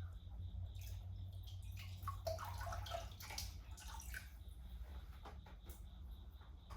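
Water sloshing, splashing and dripping in a chest-freezer cold plunge as a person climbs out, with the busiest splashing in the middle, over a steady low hum.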